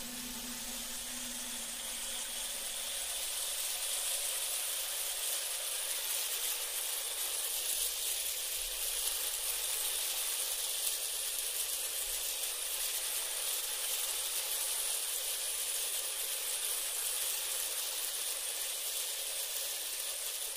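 A steady hiss, mostly high-pitched with little low end, growing slightly louder over the first few seconds and then holding even.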